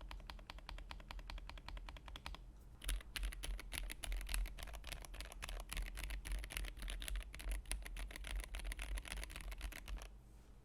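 Fast typing on a GamaKay K61 mechanical keyboard with lubed Gateron Yellow linear switches and PBT keycaps: a dense run of keystroke clicks, a brief pause about two and a half seconds in, then quicker typing that stops near the end.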